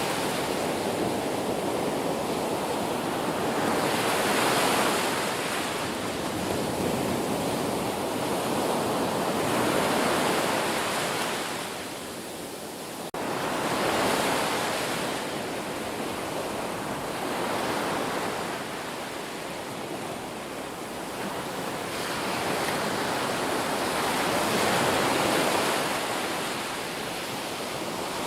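Ocean surf: waves breaking and washing up the shore, the rush swelling and fading every few seconds.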